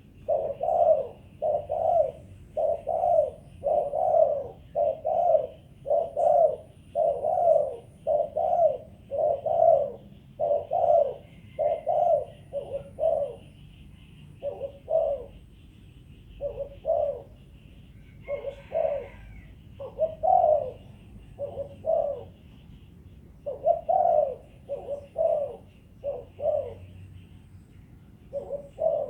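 Spotted dove (cu gáy) cooing over and over in the 'thổ đồng' voice used to call in wild doves. The low coos come in a fast run of more than one a second, and from about halfway they break into short groups with pauses between.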